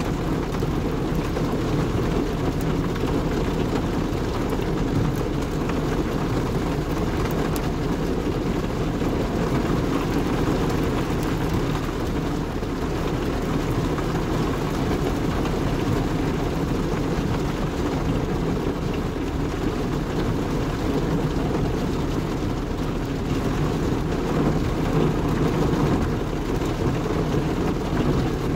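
Heavy rain falling steadily on a car's roof and windshield, heard from inside the cabin, with a deep, continuous rumble beneath it.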